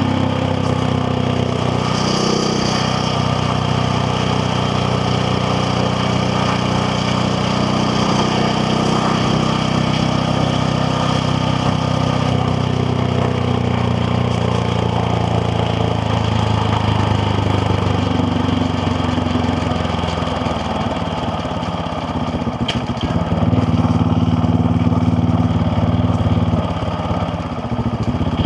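KTM Duke 690R's single-cylinder engine running while riding, with a steady engine note. About three-quarters of the way through it dips briefly, then gets louder as the throttle opens, and dips again shortly before the end.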